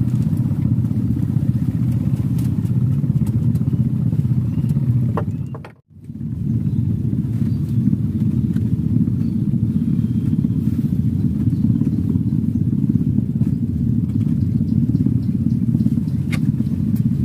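Steady low engine drone of a nearby motor, which cuts out briefly about six seconds in and then resumes.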